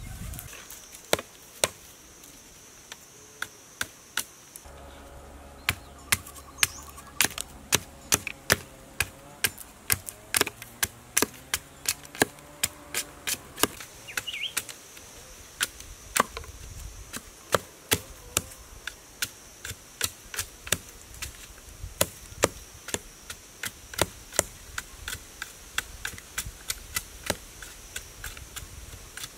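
A knife blade chopping at the end of a green bamboo pole, a string of sharp knocks about one to two a second. A steady high insect buzz runs behind, dropping out for several seconds early on.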